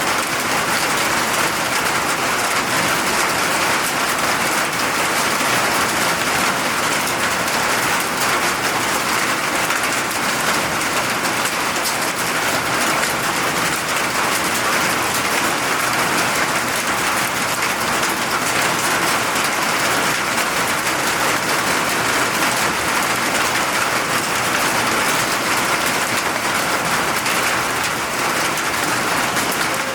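Steady rain falling and pattering on surfaces, an even hiss of drops with no letup.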